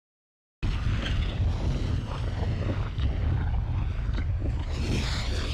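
Deep rumbling, wind-like noise that starts suddenly out of dead silence about half a second in and runs steadily on, heaviest in the low end: a sound-design effect for a volcanic eruption.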